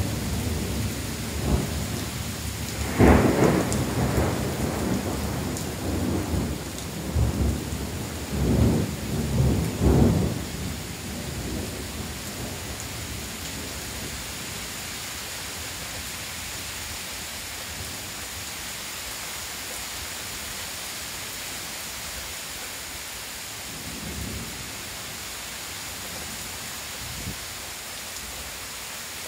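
Thunderstorm: thunder rolls in several deep rumbling swells through the first ten seconds or so, over steady heavy rain, which then goes on alone as an even hiss.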